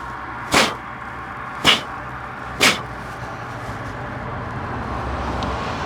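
Three sharp knocks about a second apart, from parts being handled while the diesel heater's glow plug and its jacket are refitted, over a steady low hum.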